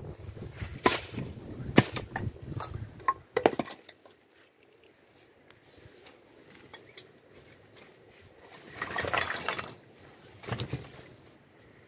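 Several sharp clinks and knocks in the first few seconds, then quieter, with a short burst of noise about nine seconds in.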